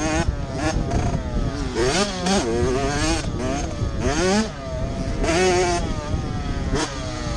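Small motocross bike's engine revving hard, its pitch climbing and dropping again and again with the throttle and gear changes. Wind buffets the helmet-mounted microphone.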